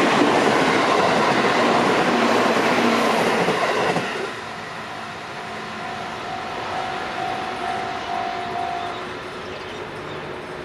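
Freight train wagons rolling past over the rails with clickety-clack, loud until the end of the train clears about four seconds in. The level-crossing alarm bell then rings on at about two strikes a second and stops near the end.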